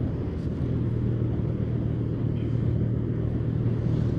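Motorcycle engine running steadily while riding at cruising speed, a constant low hum with road and wind noise.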